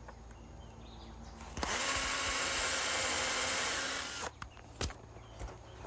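A power drill driving a screw into the wooden ridge cap, running steadily for about two and a half seconds before winding down, then a single sharp click.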